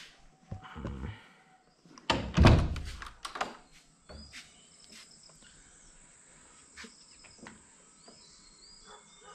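A cluster of thuds and knocks, the loudest about two and a half seconds in, then a few lighter knocks, with faint bird chirps behind them.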